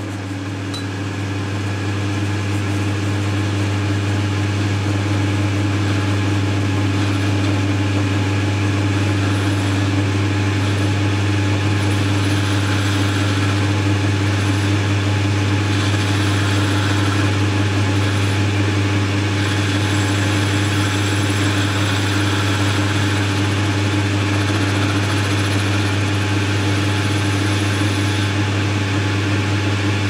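Boxford lathe running steadily with a low hum, coming up to speed over the first couple of seconds, while a ball-turning tool cuts a spherical end on a small metal bar.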